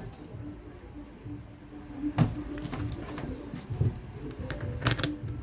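A few light knocks and clicks from plastic and metal grinder parts being handled and screwed together during reassembly, about two, four and five seconds in, over a faint steady hum.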